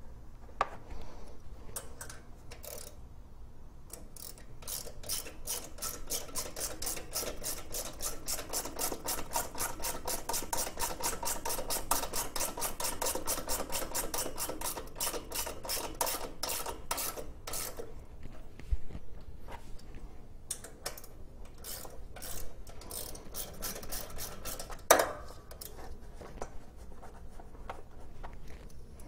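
Socket-wrench ratchet clicking in a rapid, even run for over ten seconds as bolts on a small engine's carburetor are run in, with scattered single clicks before and after and one sharp knock near the end.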